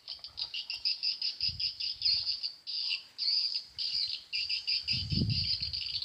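Swiftlet calls: rapid, high twittering chirps in a continuous stream, with two brief low rumbles, one about a second and a half in and one near the end.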